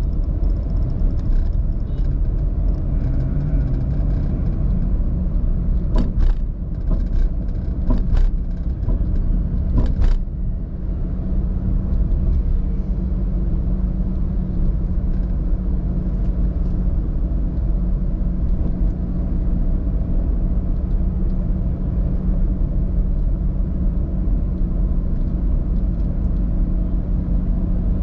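A car driving, with steady engine and road rumble and a constant low hum. A few short sharp knocks come about six to ten seconds in.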